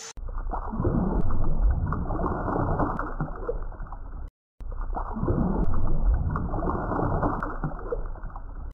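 Muffled underwater ambience: a low wash of gurgles and small clicks. It breaks off for a moment about four seconds in and then starts over the same way.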